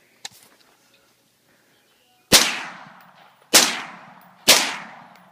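AR-15 rifle fired three times in succession, about a second apart, each shot sharp and loud with a long echoing decay.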